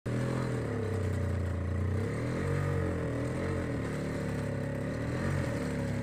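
Single-stage gas snowblower running while being pushed through snow; its small engine's pitch wavers up and down as it works.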